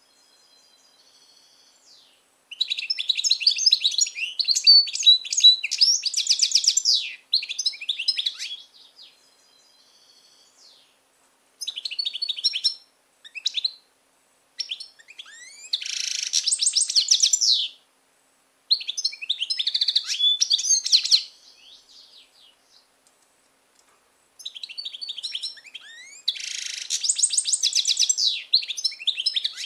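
European goldfinch singing in a cage: fast, high twittering phrases mixed with buzzy trills, in bursts of one to four seconds with short pauses between them. The song begins about two seconds in.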